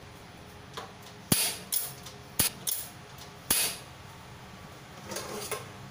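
Gas stove's piezo igniter snapping sharply as the knob is turned, three loud clicks about a second apart with a few fainter ones between, each followed by a brief hiss of gas as the burner is lit.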